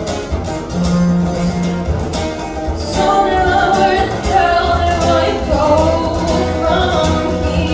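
A song performed live by a singer with a band: guitar over a steady bass and drum beat, with the singing voice coming in about three seconds in.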